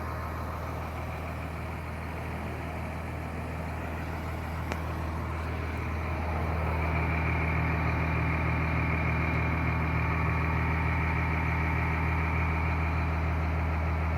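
2001 Blue Bird All American school bus engine idling steadily, growing a little louder about halfway through.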